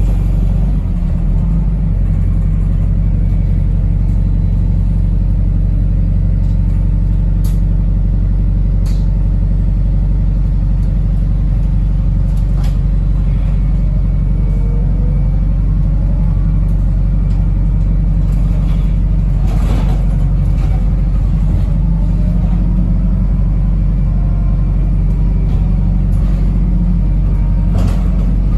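Wrightbus New Routemaster hybrid bus heard from inside while it travels: a steady low drone of its engine and drivetrain, with a few brief knocks or rattles now and then.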